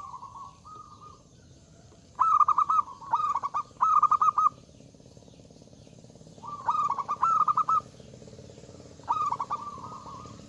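Zebra dove (perkutut) cooing: short phrases of rapid, rolling coo notes. Three phrases come in quick succession, then two more after pauses.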